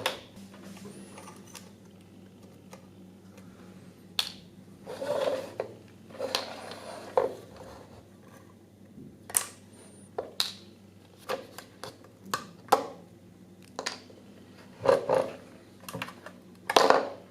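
Small parts and tools handled on a work surface: scattered clicks and taps with a few short scraping sounds.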